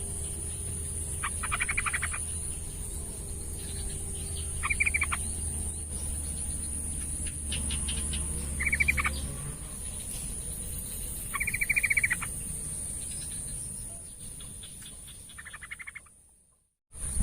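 Yellow-vented bulbul calling in five short bursts of fast chattering notes, a few seconds apart, over a steady high-pitched insect drone. The sound cuts out briefly near the end.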